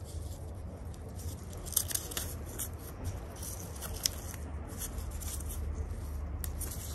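Brittle old covering being picked and peeled off a small round object by gloved hands: scattered soft crackles and scratches with a few sharper ticks, over a steady low hum.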